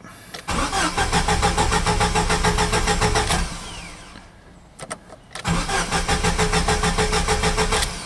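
A 1998 Jeep Cherokee's 2.5-litre four-cylinder engine cranking on the starter in two tries, each a few seconds of even, rhythmic turning over that stops without the engine catching. The cranking-but-no-start is what sounds to the mechanic like it isn't getting fuel or maybe spark.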